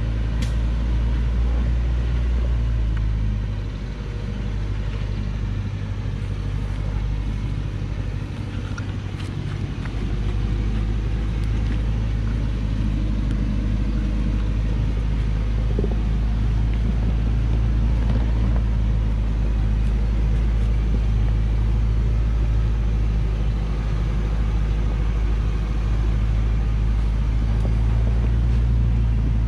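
Diesel engine of a Hoa Mai truck loaded with acacia logs, running with a steady low drone as it crawls along a dirt hillside track; it eases off a little for a few seconds about four seconds in, then holds steady.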